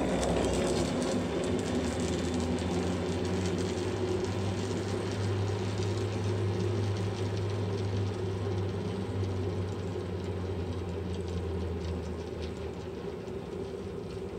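Pulley wheels of a trail cable car rolling along the steel cable, a steady mechanical hum with a low drone and faint ticking. It slowly fades as the car travels away over the river.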